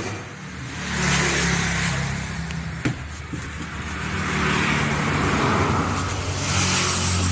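Toyota Kijang Kapsul's dashboard AC blower fan spinning up about a second in and running, a rush of air over a low motor hum that swells and eases.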